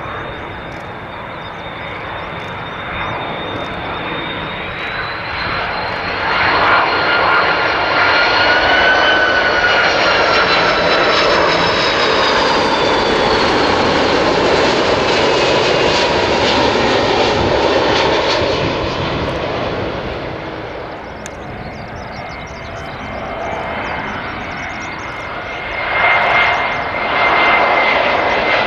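Jet engines of a Finnair Airbus A330-300 on landing approach with gear down, whining as it passes: the whine swells, rises a little in pitch, then drops in pitch and fades. Near the end a second airliner, a VietJet Air Airbus A321, approaches with a steady whine that grows louder.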